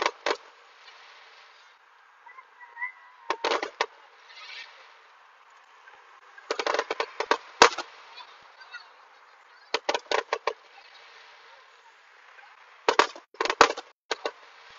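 Aerial fireworks going off: five volleys of sharp bangs and crackles about three seconds apart. The volley around the middle is the longest and loudest.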